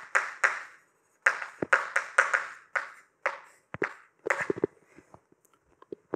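Chalk writing on a blackboard: a quick run of scratchy strokes and taps. Near the end it gives way to a few quieter footsteps on the floor.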